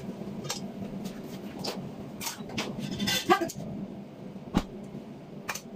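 Scattered clicks and light metal knocks as a stainless steel potato ricer and a pot are handled, loudest in a short clatter about three seconds in, over a steady low hum.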